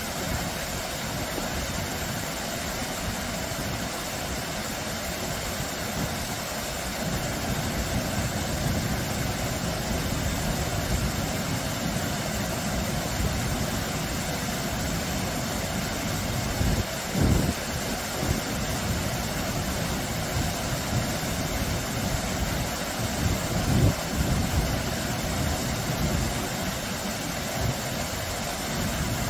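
Small, low waterfall pouring over rocks into a shallow stream: a steady rush and splash of falling water with a deep rumble underneath. Two brief low thuds stand out, about halfway through and again some seven seconds later.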